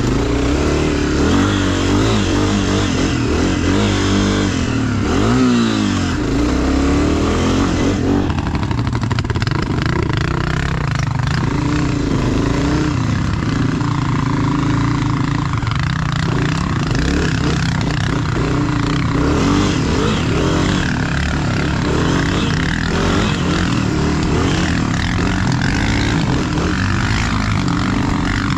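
ATV engine running, its pitch rising and falling with the throttle for the first several seconds, then running steadier.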